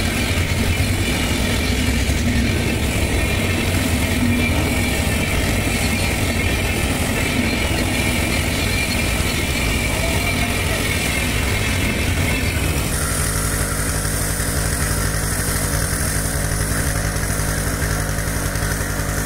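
Petrol-engine abrasive rail saw running at full speed, its disc grinding through a steel rail: a steady engine note under a shrill grinding whine. The sound changes abruptly about 13 seconds in.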